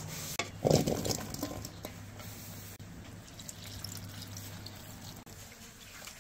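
Water poured from a clay pitcher into an aluminium bowl of sliced banana stem, a steady pour after a thump about a second in.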